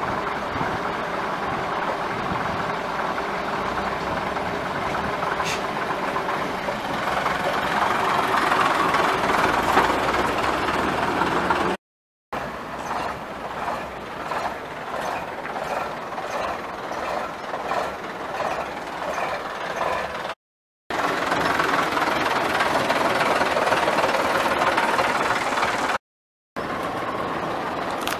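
Vintage London Transport RT double-decker buses' diesel engines running and moving off, in several short segments broken by brief silent cuts; the middle stretch has a pulsing idle beat.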